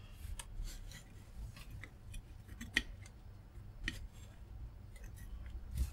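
Sequre PSF18 PCB holder being handled as a circuit board is set in it: the clamp jaw sliding on its metal guide rods, with faint scattered clicks and a couple of sharper ticks near the middle.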